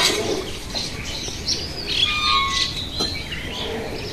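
Birds chirping and calling, many short rising and falling notes, with a short sharp sound at the very start.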